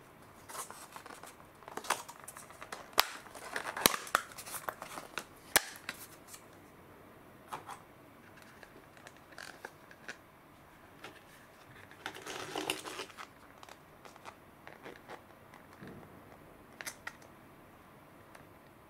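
A thin clear plastic clamshell lid being pried off a black plastic sweets tray and the tray handled: a run of sharp clicks and crinkles over the first six seconds, another spell of crinkling about twelve seconds in, then scattered small clicks.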